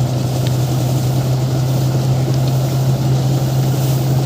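Paddy thresher running steadily with a constant low machine hum and a dense rattle.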